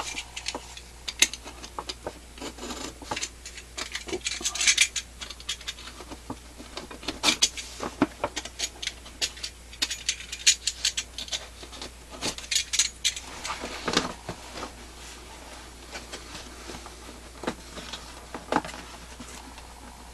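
Hands working at a fireworks cake's cardboard packaging, irregular scraping, rubbing and clicking as the box is handled and pried open.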